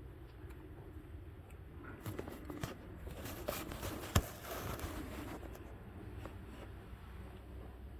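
Hands and tools working on a car engine: a run of small clicks and scrapes in the middle, with one sharp click, over a low steady hum.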